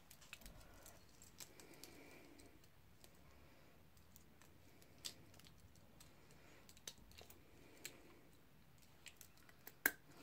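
Near silence: faint room tone with a few scattered faint clicks, a few sharper ones near the end.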